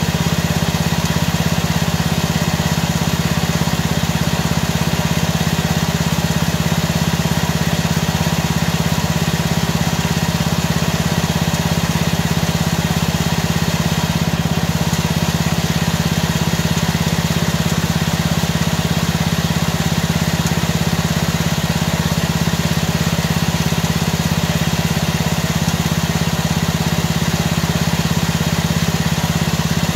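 Riding lawn mower's engine running steadily at idle, an even drone with no change in speed.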